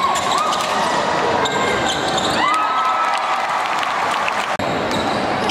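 Basketball play on an indoor court: a ball bouncing, and short squeaks of sneakers on the floor, about two and a half seconds in the loudest, over a steady background hubbub.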